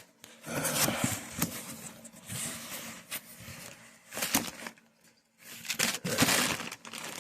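Hands rummaging through boxes and loose hobby parts: irregular rustling, scraping and light clattering in uneven bursts with short pauses between.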